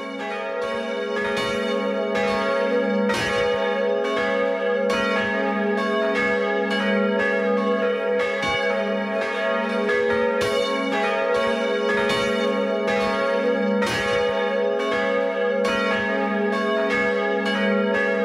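Church bells ringing, swinging bells striking about twice a second in an uneven, overlapping rhythm, their tones hanging on between strikes. The ringing swells in over the first second and then runs on at an even level.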